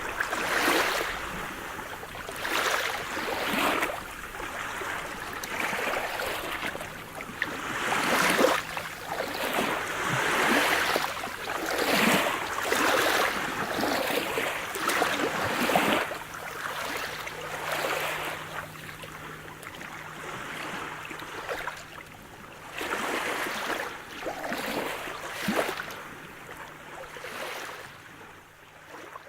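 Sea surf: waves breaking and washing in, a rushing hiss that swells in repeated surges every second or two and dies down near the end.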